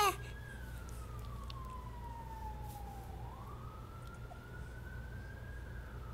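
A baby's brief squeal right at the start, then a siren wailing slowly: its pitch falls for about three seconds, rises again, and begins falling near the end.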